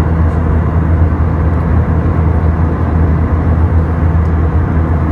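Airbus A320-232 cabin noise in cruise, heard from a window seat by the wing: a steady low engine drone under an even rush of air.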